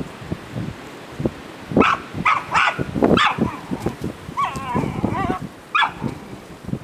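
Peruvian Inca Orchid dog yipping: four or five short, sharp yips in quick succession from about two seconds in, a wavering whine in the middle, and one more yip near the end.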